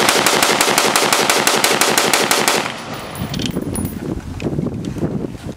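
Semi-automatic rifle being bump-fired: a fast, even string of shots at about nine a second that stops a little over two and a half seconds in, leaving lower, uneven noise.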